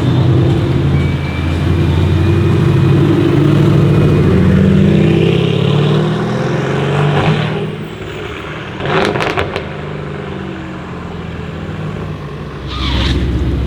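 Mercedes-AMG GT R Pro's twin-turbo V8 through a straight-pipe exhaust, accelerating with a rising pitch for several seconds and then backing off. A quick cluster of sharp cracks comes a couple of seconds after the lift-off, and the engine sound swells again near the end.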